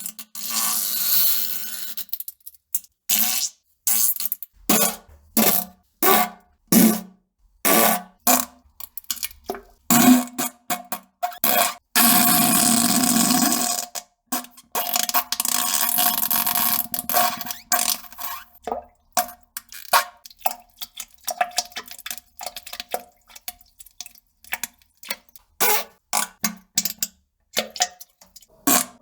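A rapid series of short fart sound effects, dozens of abrupt bursts cut one after another with gaps between them, including a longer sputtering stretch of about two seconds in the middle.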